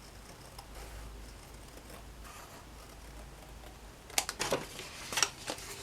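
Scissors snipping paper: a quick run of several sharp snips about four seconds in, after a near-quiet start.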